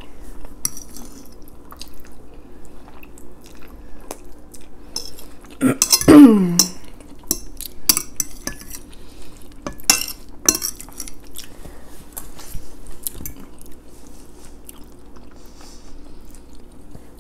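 Metal forks clinking and scraping against plates of spaghetti, with chewing in between. About six seconds in, a loud slurp with a falling pitch as noodles are sucked in.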